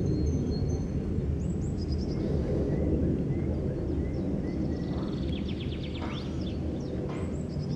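Steady low rumble of an Airbus A340-300's four CFM56 jet engines passing high overhead. Songbirds chirp several times over it, with a quick trill about five seconds in.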